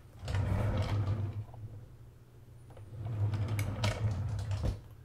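Wooden kitchen drawer sliding on its runners, twice, each slide lasting about a second and a half; the second ends in a sharp knock.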